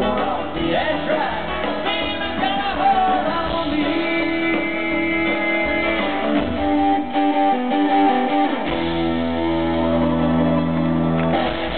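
Live country-rock band music: electric guitar, mandolin and drums with a man singing lead, closing on a long held chord that stops shortly before the end.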